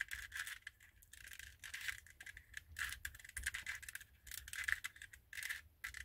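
Quiet, irregular clicking and rattling of a 2x2-based twisty-puzzle chess king as its layers are turned during a solve.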